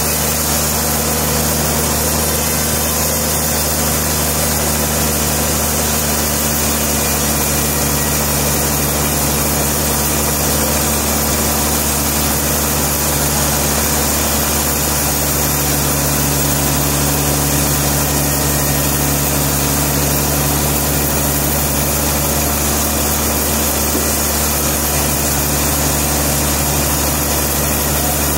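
Sawmill machinery's engine running steadily at constant speed, a continuous drone that does not change.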